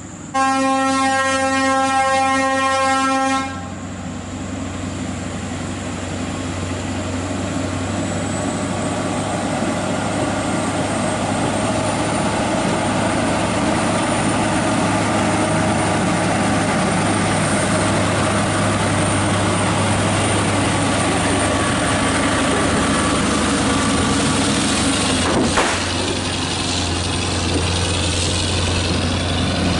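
An air horn sounds loudly for about three seconds. Then the V8 diesel of a Scania R580 tractor unit grows steadily louder as it labours uphill under a heavy load, a 30-tonne CAT articulated dump truck on a lowboy trailer, and passes close by. There is one brief sharp knock about 25 seconds in.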